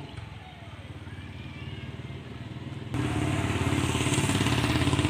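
An engine running with a low, fine, steady pulsing; it jumps abruptly much louder about three seconds in.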